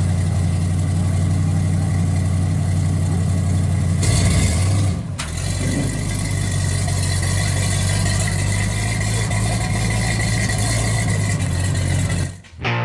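1950 Ford F-1 rat rod pickup's engine running at a low, steady idle as the truck pulls out and drives slowly off, with a brief louder rush about four seconds in.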